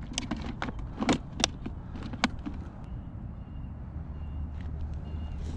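A clear plastic tackle box being handled, its lid and latches clicking and clacking in a quick run of sharp knocks over the first couple of seconds.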